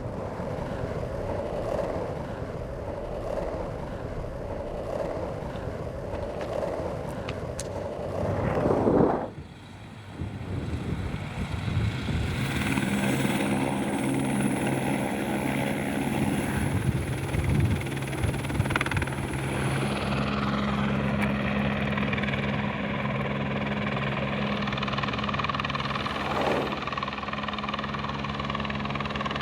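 A vehicle engine runs steadily under a noisy road and wind rumble. About nine seconds in the sound cuts off abruptly, and after a short lull a steadier engine hum holds a constant low pitch to the end.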